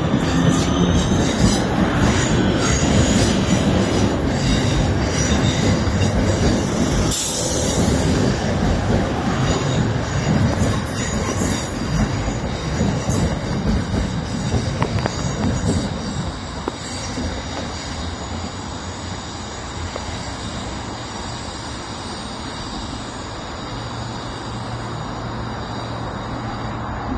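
Two coupled Class 323 electric multiple units pulling away and running off on a curving track: wheel and rail noise with thin high squeals from the wheels on the curve. The noise drops about two-thirds of the way through as the train draws away.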